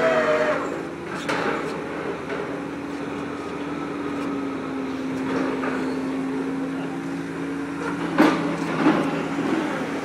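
MAIT HR130 rotary piling rig's engine and hydraulics running with a steady drone as the drilling bucket is hoisted out of the bore. There is a metallic clank about a second in and two more near the end.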